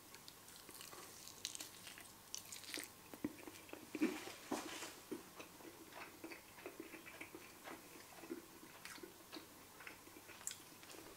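A man biting into and chewing a flour-coated, air-fried chicken drumstick close to the microphone: faint, irregular crunches and wet mouth sounds, a little louder about four seconds in.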